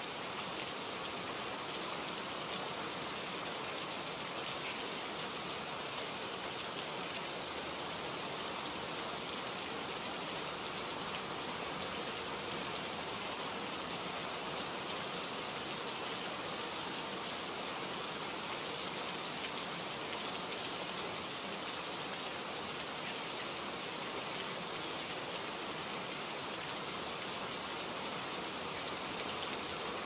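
Rain falling steadily onto a wet surface, an even, unbroken hiss of many drops.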